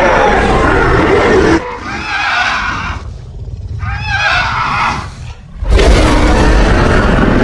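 Designed dragon creature vocalizations: a loud, harsh roar breaks off about one and a half seconds in. A quieter stretch of wavering calls follows, rising and falling in pitch, and the loud roar starts again near the end.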